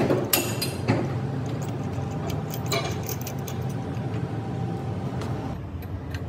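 Steady machinery hum with a few sharp metallic clicks and knocks, typical of workshop work; a faint steady tone in the hum drops out about five and a half seconds in.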